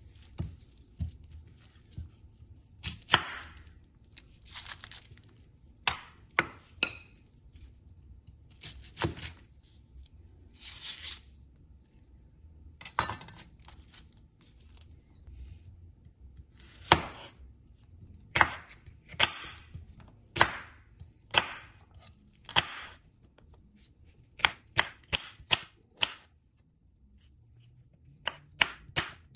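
A red onion being peeled and sliced on a bamboo cutting board. The dry skin gives a crinkly tearing, and a santoku knife cuts through the onion and knocks on the board, in a quicker run of chops in the second half.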